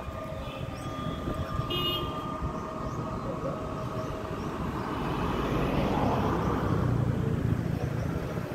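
Outdoor road traffic with a steady low rumble; a vehicle passes, swelling louder about five seconds in and fading again a couple of seconds later.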